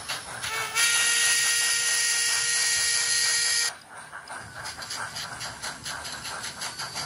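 Sound decoder in an Nn3 scale model steam locomotive playing a steam whistle: one long blast of about three seconds, a chord of steady tones over hiss, starting just under a second in and cutting off sharply. Around it the decoder's rhythmic exhaust chuffs run on.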